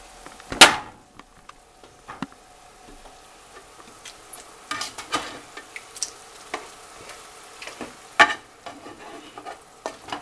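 Chicken cooking in soy sauce and brown sugar in a square nonstick pan, a faint sizzle. A sharp, loud knock comes about half a second in, with several lighter knocks and clicks later.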